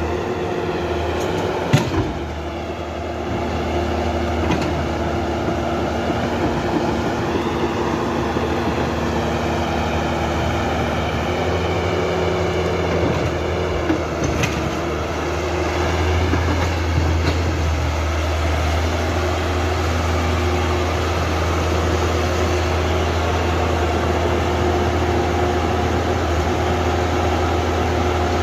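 Hydraulic pump and motors of a radio-controlled long-arm excavator running with a steady whine, the higher tones shifting as the arm works. A couple of short sharp clicks, one about two seconds in and one near the middle.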